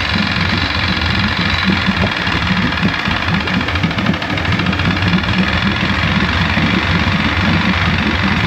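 1973 Johnson 65 hp two-stroke outboard engine running just after starting, a loud steady run with an uneven low pulsing.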